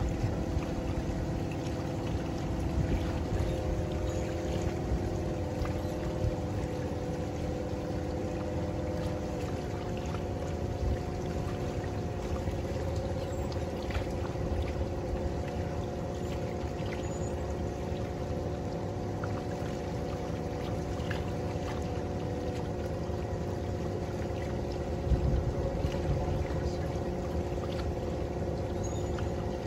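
A small boat's motor running steadily while cruising, with a whine of several tones that shifts pitch a few seconds in and again about nine seconds in, over a low rush of water and air. A single low thump comes about 25 seconds in.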